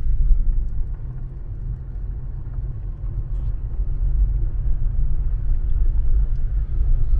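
Low, steady rumble inside a car's cabin as it drives slowly over a gravel road: engine and tyres on gravel.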